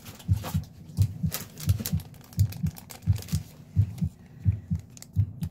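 Steady low, muffled double thump repeating about once every 0.7 seconds, like the bass beat of music playing in the room, with faint clicks and rustles of things being handled.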